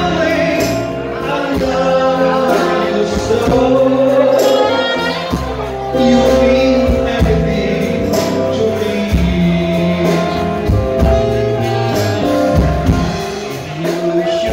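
A man singing into a microphone, backed by a live band with electric guitar, saxophone and drums.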